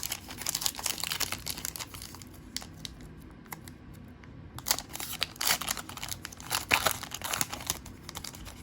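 A trading-card pack wrapper being torn open and crinkled by hand, in two bouts of crackling with a quieter pause between them.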